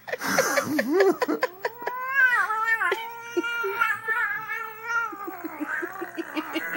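Domestic cat yowling: a few quick rising and falling cries, then one long drawn-out wail that wavers in pitch and sags near the end.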